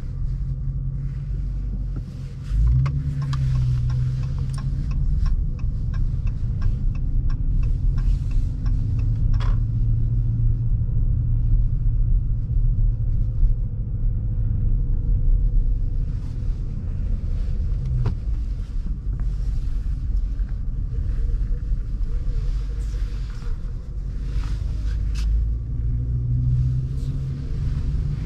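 A Dodge R/T's Hemi V8 heard from inside the cabin while driving: a steady low exhaust rumble. The engine note picks up a couple of seconds in and shifts with the throttle a few times after that.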